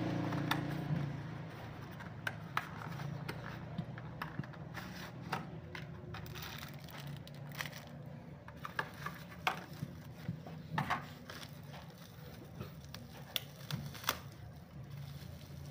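Clear plastic packaging and bubble wrap crinkling and crackling in the hands as small parts are unwrapped: irregular sharp crackles scattered throughout, over a low steady background rumble.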